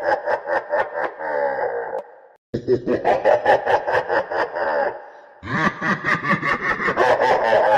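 Evil laugh sound effect: a rapid run of laughing pulses, about six a second, looping over and over. It breaks off briefly about two and a half seconds in and again about five seconds in before starting again.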